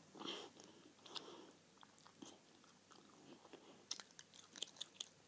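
Faint chewing of a stick of sour chewing gum, with a soft breathy sound at the start and a few short, sharp wet mouth clicks about four to five seconds in.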